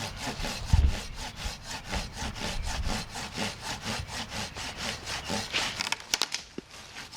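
Hand saw with a peg-tooth blade cutting through a dry log in quick, even back-and-forth strokes, about five or six a second, with a few low knocks about a second in.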